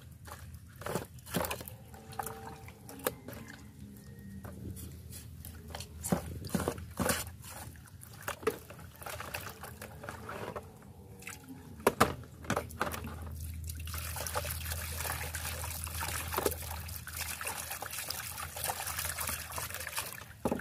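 Pig offal being washed by hand in water: splashes, drips and knocks of handling in a basin. About two-thirds of the way in, a steady stream of running water starts and carries on.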